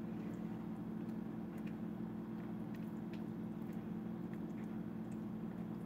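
Silicone spatula stirring a thick, stringy cheese sauce in a skillet: soft squishing with scattered small clicks, over a steady low hum.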